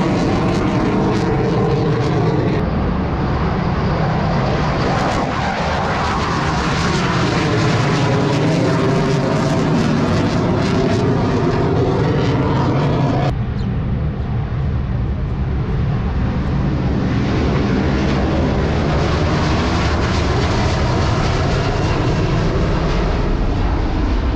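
Jet aircraft engines at takeoff power: a loud, continuous jet noise with slowly sweeping rising and falling tones as the aircraft climbs away. The sound changes abruptly twice, about two and a half seconds in and again about halfway through.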